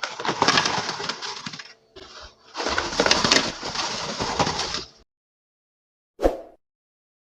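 Oil sizzling and crackling as potato strips deep-fry, in two stretches with a short break between. The sizzle cuts off suddenly, followed a second later by a single soft thump.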